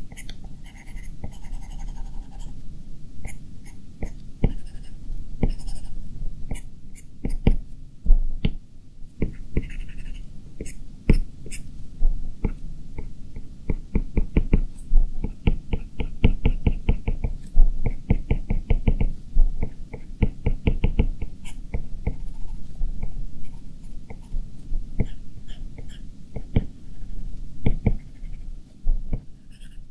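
Stylus tip tapping and stroking on an iPad Pro's glass screen while drawing: sharp little clicks, often in quick runs of several a second, over a low steady hum.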